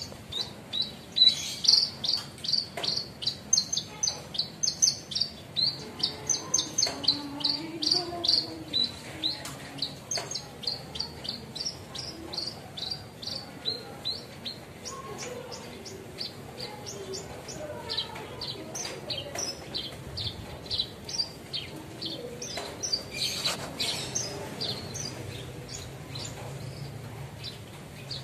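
Branjangan (Horsfield's bush lark) singing a long run of quick, high, repeated chirps, about three a second. The chirps are loud and dense for roughly the first fifteen seconds, then thin out and grow fainter.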